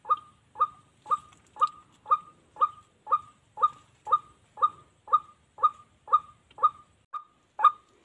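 A bird call: one short note repeated in a very even rhythm, about two a second, with a weaker note just after seven seconds in.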